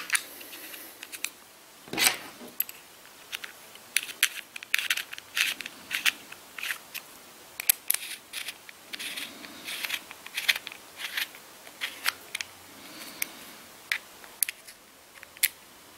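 Small clicks, ticks and scrapes of a hard plastic Magpul AFG-1 foregrip and its small parts being handled and screwed back together with a small hex key, with one louder knock about two seconds in.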